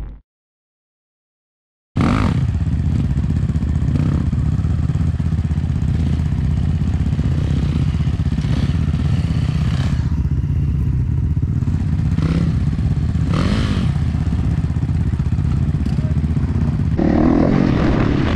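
After about two seconds of silence, an enduro motorcycle's engine runs steadily, with a few brief clattery knocks, growing somewhat louder and fuller near the end.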